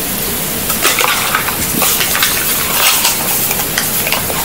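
Hands handling a coiled USB cable and its small cardboard box and packaging: an irregular crinkling rustle with many small clicks and crackles.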